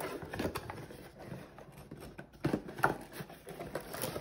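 Light knocks and rustles of objects being handled and packed, with the two loudest knocks about two and a half and three seconds in.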